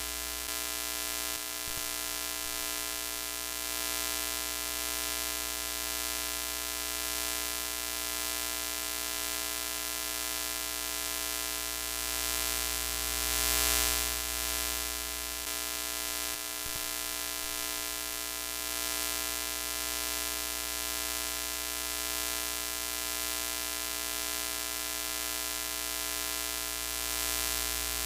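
Broken-TV sound effect: a steady electrical buzz with a hum, under a hiss of static that swells briefly about halfway through.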